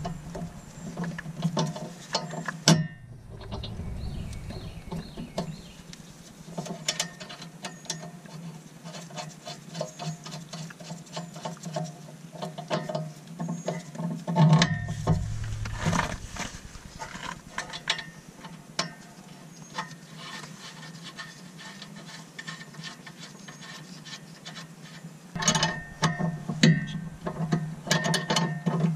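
Ratchet wrench clicking in quick runs as it turns a sway bar end link nut, with scattered metal-on-metal tool clinks in between.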